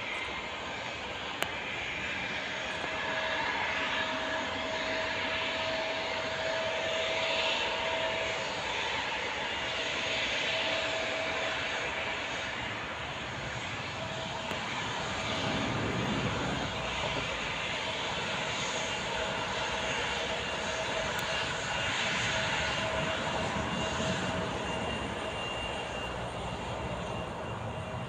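Embraer E175 airliner's twin turbofan engines running as it moves along the runway for departure: a steady whine over an even rushing noise.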